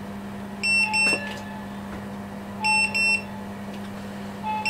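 Inkbird IBT-26S wireless meat thermometer's alarm beeping: short high double beeps about every two seconds, the signal that the probed chicken has reached its target temperature. Under it runs a steady low hum from the running electric grill.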